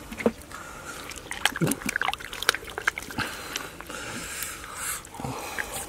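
Muddy water sloshing and dripping as a hand gropes in a shallow flooded mud hole, with many short clicks and small splashes.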